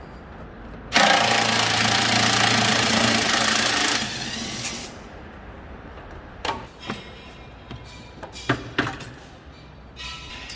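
A power tool runs loudly for about three seconds, starting and stopping abruptly, then a few separate knocks.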